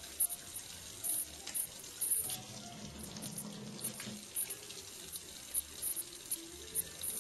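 Kitchen faucet running a thin stream into a stainless steel sink: a steady splashing hiss with frequent short crackly ticks.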